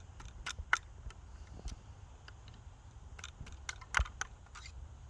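Scattered light clicks and taps of a ball starter working a .50 caliber lead ball into the muzzle of a muzzleloading Kentucky rifle, with the loudest knock about four seconds in.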